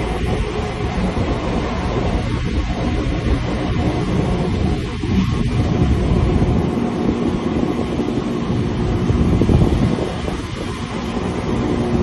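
Passenger train running along the track, heard from aboard beside the carriage: a steady rolling rumble of wheels and running gear.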